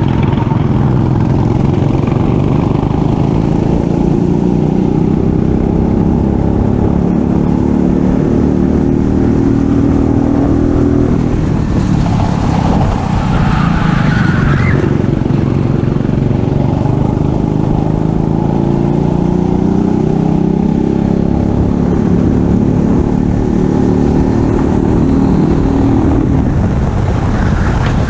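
Racing kart engine at full throttle. Its pitch climbs steadily for several seconds, drops about eleven seconds in as the kart slows for a corner, climbs again, and drops once more near the end.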